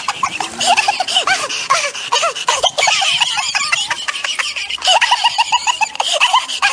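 Loud laughter, quick repeated 'ha-ha' sounds.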